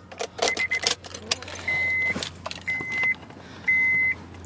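Car keys jangling and clicking as the ignition key of a 2005 Honda Civic Hybrid is turned to on. Then a high electronic beep repeats about once a second, each beep about half a second long.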